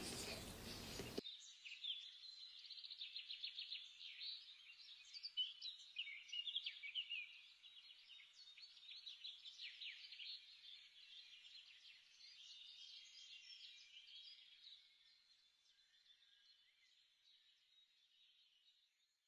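Faint birdsong: many small birds chirping quickly, thin with no low end, fading out over the last few seconds. A fuller background noise cuts off about a second in.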